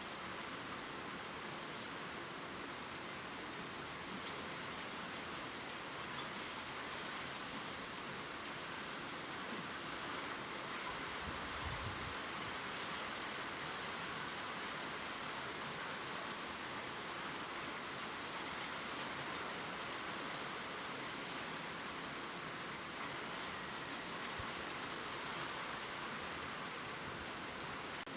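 Gentle steady rain falling on leaves: an even hiss with light scattered drop ticks, and a brief low thump about twelve seconds in.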